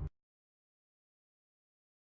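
Digital silence: the last instant of intro music cuts off abruptly at the very start, then nothing at all.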